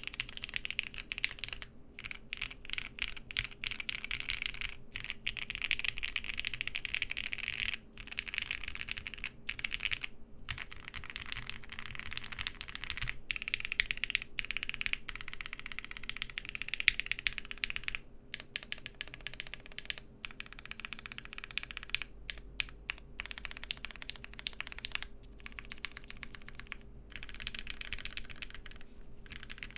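Continuous typing on a Bakeneko60 mechanical keyboard with lubed and filmed Lavender switches and PBT keycaps: a dense run of keystroke clacks with brief pauses, over a faint steady fan hum.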